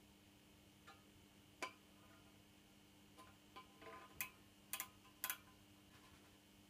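Small, sharp clicks of an outside micrometer being wound in and closed against the lathe bed's front vertical way, about ten in all, scattered, with the loudest coming in close pairs in the second half.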